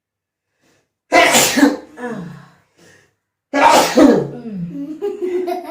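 Two loud human sneezes, about a second in and again past the middle, each trailing off in a short voiced tail, set off by snuff powder taken up the nose.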